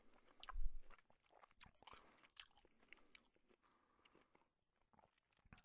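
A cat licking and grooming cloth trousers: faint, irregular wet clicks and rasps of its tongue, thinning out toward the end. A low thump about half a second in is the loudest sound.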